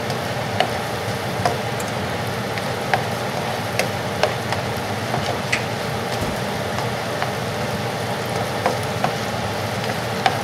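Diced onions and garlic frying in butter in a cast-iron skillet: a steady sizzle with scattered sharp pops and clicks as the mixture is stirred.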